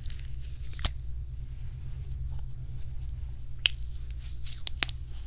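A few scattered sharp clicks made close to the microphone as ASMR triggers, the loudest a little past halfway, over a steady low hum.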